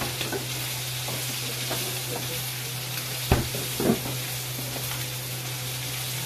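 Pork pieces with garlic and onion sizzling in a stainless wok on a gas burner as a spatula stirs and scrapes them, with two louder knocks of the spatula against the pan about halfway through. A steady low hum runs underneath.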